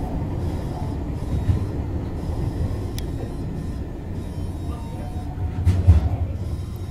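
Tobu Noda Line electric local train running, heard from inside the car: a steady low rumble of wheels on the rails. A single sharp click comes about three seconds in, and a louder knock near the end.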